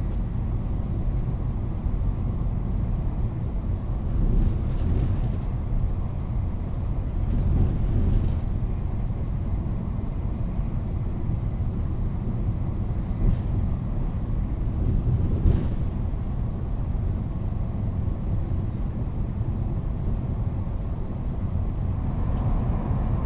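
Steady low rumble of a moving train heard from inside the passenger car, with a few brief rattles and clatters on top.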